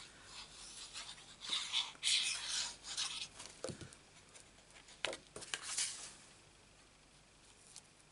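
Cardstock being handled: sheets of card rustling and rubbing against each other and the mat in irregular bursts, with a few light taps. The handling stops about six seconds in.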